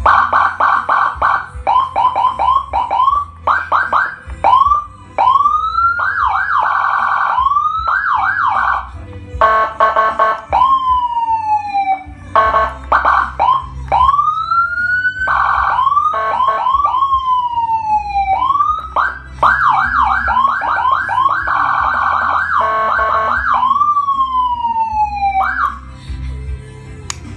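Electronic siren cycling through its tones: fast yelping warbles, rising sweeps and long falling slides, switching pattern every second or two.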